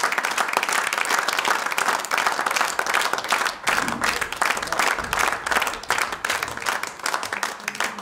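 Large theatre audience applauding: dense, continuous clapping that begins to thin into more separate claps near the end.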